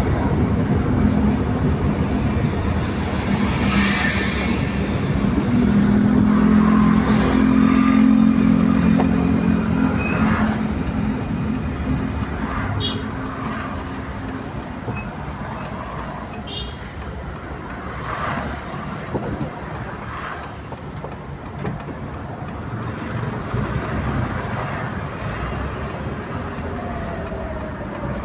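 Road traffic passing by. A heavy vehicle's engine drones loudest in the first half and fades away about halfway through, leaving steady traffic noise with a few short sharp sounds.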